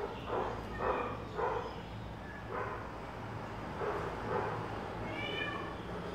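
Cats meowing in a run of short calls, with a higher, drawn-out meow about five seconds in, over a steady low hum.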